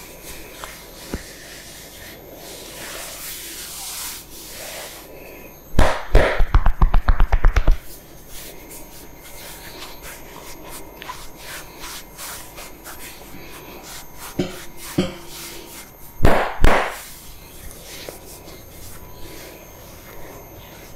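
Hands rubbing over a person's head and hair during a barber's head massage. About six seconds in comes a quick run of about ten loud slaps over two seconds, and later a few single slaps and a loud double slap.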